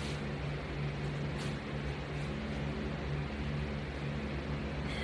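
A steady low hum under a faint hiss, with a few faint ticks.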